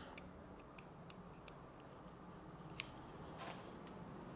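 Quiet room tone with a low steady hum, broken by a few faint, sharp clicks and ticks from something small being handled.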